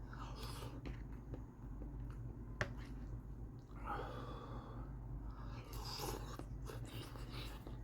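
A person chewing soft microwaved chicken and pasta alfredo, with faint wet mouth sounds and one sharp click about two and a half seconds in.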